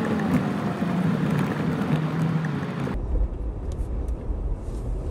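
Off-road 4x4's engine running and revving unevenly as it drives up a rough mud track, heard from inside the cab. About three seconds in, the sound cuts suddenly to a steady low rumble of the vehicle on the track.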